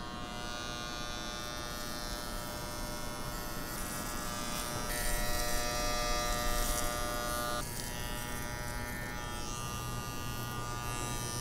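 Corded electric hair clippers buzzing steadily as they cut hair. The buzz grows louder and changes tone about five seconds in, then eases back before eight seconds.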